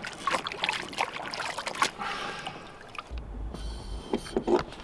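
Water splashing and trickling, with irregular sharp knocks. About three seconds in the sound changes abruptly to a muffled low rumble.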